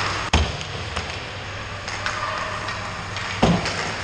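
Ice hockey warm-up in a rink: two loud sharp knocks about three seconds apart, pucks striking hard surfaces around the goal, over scattered clicks of sticks and pucks on the ice.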